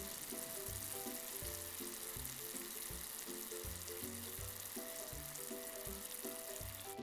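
Sugar syrup boiling in a saucepan: a dense, fine crackling sizzle, under background music.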